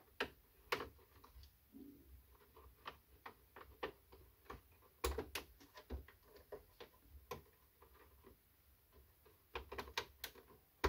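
Scattered light clicks and taps of plastic parts and wire connectors being handled and plugged in inside the open housing of a Krups Barista EA9010 coffee machine, with small clusters of clicks about five seconds in and again near the end.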